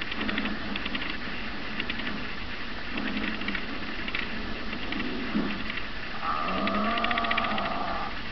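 A cartoon's soundtrack playing through a portable analog TV's small built-in speaker, with hiss and a rapid buzz over it. A little after six seconds in, a steady two-note tone comes in and holds for about two seconds.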